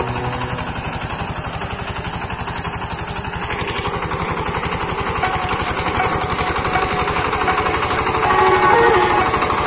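Walk-behind power tiller's single-cylinder diesel engine running under load as the rotary tiller works through the soil: a steady, rapid chugging beat that grows slightly louder midway.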